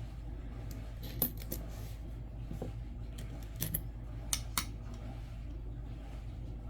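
Nickels clicking against each other and a hard surface as they are handled: a handful of sharp metallic clicks, some in quick pairs, over a steady low hum.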